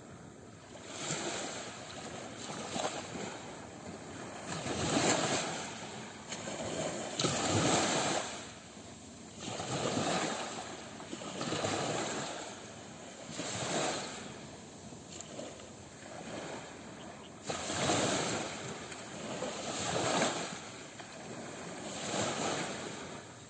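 Small waves breaking and washing up on a shore, one after another roughly every two seconds, each a short swelling rush of surf that falls away.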